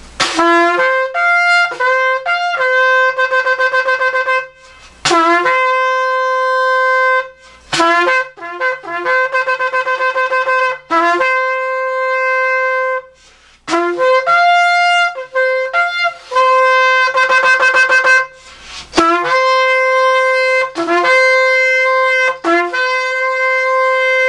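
A long spiral-horn shofar, about 42 inches, freshly repaired and tuned at the mouthpiece, blown hard in a series of loud blasts. Each blast opens with a short low note that jumps up to a long held higher note. Several blasts break into rapid quavering trills before settling back on the held tone.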